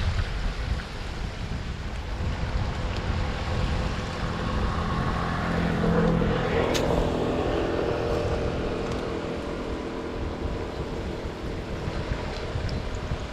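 Steady low rumble of wind on the microphone and road traffic, with a motor vehicle's engine swelling and fading as it passes about halfway through. A single sharp click sounds shortly after the vehicle is loudest.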